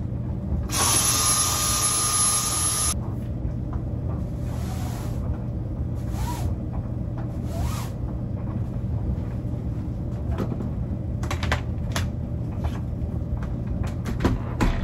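Dyson cordless stick vacuum switched on by its trigger, its motor whining up to speed and running for about two seconds, then stopping suddenly; it is sucking up loose rug-backing debris from a washing machine drum. A few shorter, quieter bursts follow, and there are light clicks and knocks near the end.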